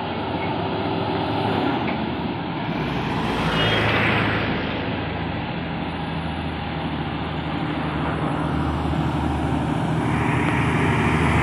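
Diesel engine of a MAN tractor unit hauling a loaded lowbed trailer up the incline, running steadily and growing louder as it approaches. A passing car's tyre and engine noise swells briefly about four seconds in.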